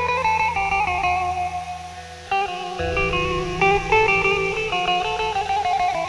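Background music: a plucked guitar melody over a steady bass line, dipping briefly about two seconds in before carrying on.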